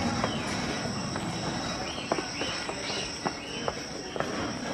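Steady high-pitched chirring of insects such as crickets, with scattered footsteps and sharp knocks on the walkway.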